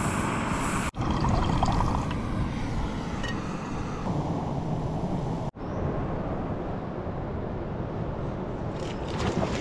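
Steady rush of wind on the microphone and seawater washing over rocks, broken twice by abrupt cuts, about a second in and about five and a half seconds in.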